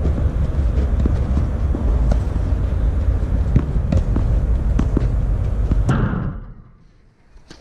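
Wind buffeting the microphone, a heavy low rumble with scattered faint knocks, that dies away suddenly about six seconds in.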